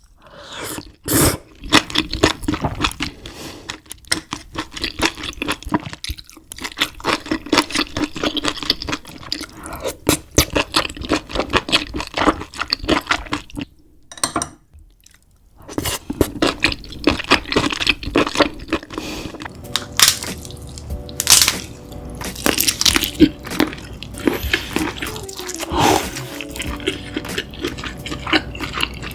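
Close-miked eating sounds: seafood being cracked, crunched and chewed in a dense run of sharp clicks and crackles, pausing briefly about halfway. Background music with steady held tones comes in during the second half.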